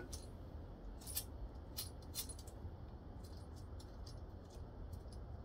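Faint, scattered metallic clicks and clinks of hand work on the carburetor's mounting nuts and lock washers, about nine small ticks in five seconds.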